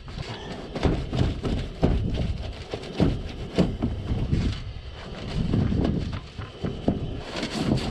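A damp cloth wiped and scrubbed over a freshly tin-soldered zinc gutter seam to clear off the acid flux, with irregular scraping, rubbing and knocking of hand and rag against the zinc sheet.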